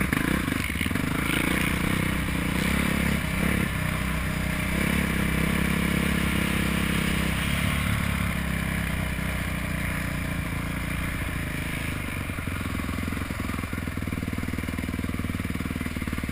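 Dirt bike engine running at low, varying throttle, picked up by a helmet-mounted camera. It is steady, with a few shifts in pitch as the throttle changes.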